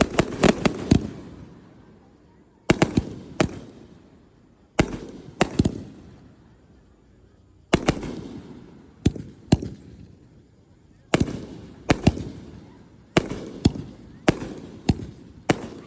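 Aerial fireworks shells bursting in a series of loud, sharp bangs. They come in clusters every two to three seconds, each followed by an echoing rumble that fades away, and the bangs come faster near the end.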